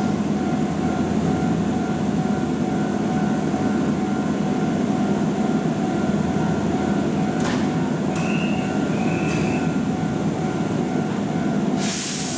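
Keihan electric train running with a steady low rumble and hum, with a few sharp clicks in the middle. A sudden loud hiss starts near the end.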